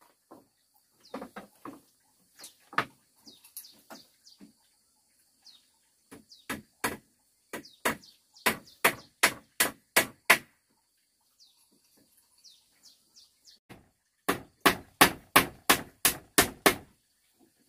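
Hammer blows on bamboo: a few scattered knocks, then two runs of quick, even strikes about three a second, the second run after a pause of a few seconds. Birds chirp in the background.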